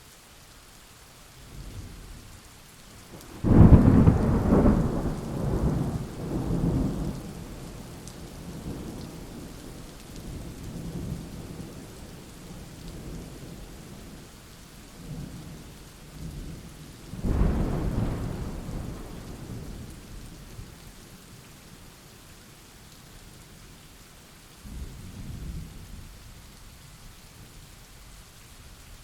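Thunderstorm: steady rain with three peals of thunder. The loudest breaks sharply a few seconds in and rolls on for several seconds, a second comes about halfway, and a fainter rumble follows near the end.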